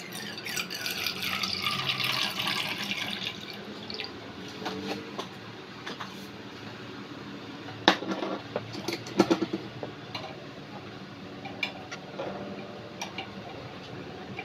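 Water poured from a small cup into a miniature stainless steel pot, splashing for about four seconds. Afterwards come a few light knocks and clinks.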